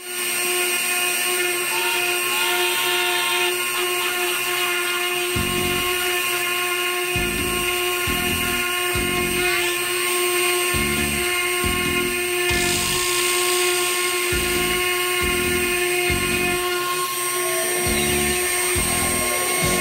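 A CNC router spindle runs with a steady high whine while its end mill cuts grooves into a board. From about five seconds in, irregular low rumbling pulses come and go as the cutter works through the material.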